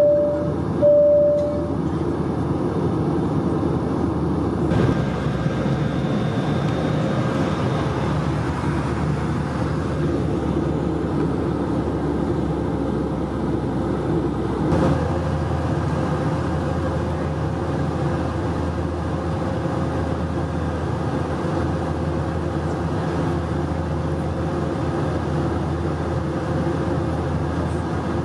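Steady in-cabin noise of an Airbus A220-300 on approach: the drone of its Pratt & Whitney geared turbofan engines and the airflow, with a faint steady hum running through it. Two short tones sound about a second apart at the start.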